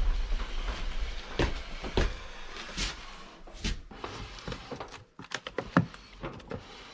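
A series of sharp knocks and clunks, irregular and closer together in the last couple of seconds, with a low rumble at the start.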